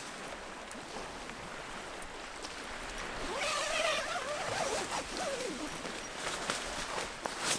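Tent door zipper being unzipped in one long pull of about two seconds, a buzz that wavers in pitch, followed by short rustles of tent fabric near the end.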